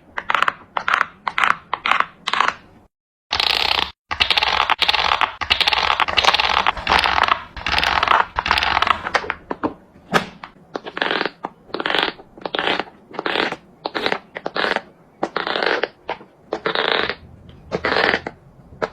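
Silicone pop-it fidget toy being popped bubble after bubble, in a race to pop them all. The pops come in quick succession, run together densely for several seconds about three seconds in, then slow to separate pops in the second half.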